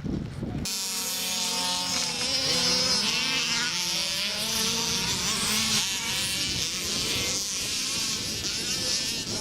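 Several small engines of Baja off-road vehicles running and revving, with a high buzz whose pitches rise and fall as they speed up and slow down; the sound starts abruptly just under a second in.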